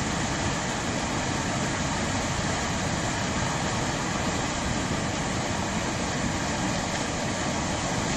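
Loud, steady rush of turbulent floodwater from a swollen river in spate, unbroken throughout.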